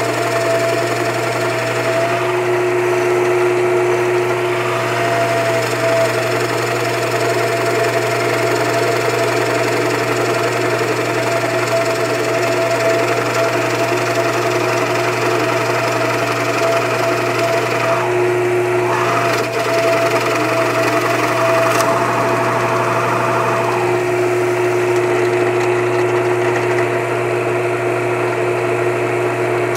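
Drill press running steadily with a 1 1/4-inch Forstner bit boring a hole through wood.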